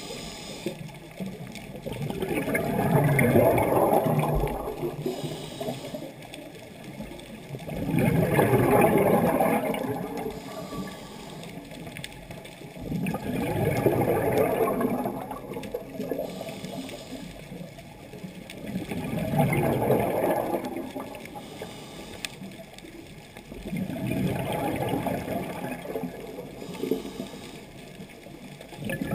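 Scuba diver breathing through a regulator underwater: exhaled air bubbles out in about five swells, one every five to six seconds, with quieter gaps while breathing in.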